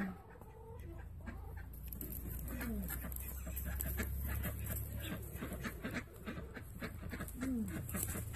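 Guinea fowl and chickens calling as the flock leaves the coop: rapid clucking and chattering, with two short falling calls about two and a half and seven and a half seconds in.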